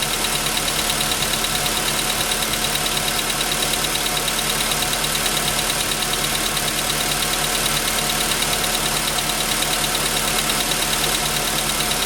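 Volkswagen Jetta 6 engine idling steadily with a regular, rhythmic knock running through it: piston knock, the pistons being what was found faulty and replaced under warranty.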